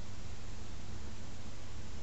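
Steady hiss with a low hum underneath and no distinct sound events: recording background noise.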